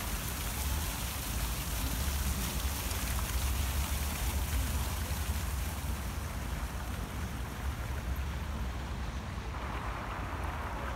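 Wind rumbling on the microphone over a steady outdoor hiss, which thins out about seven seconds in.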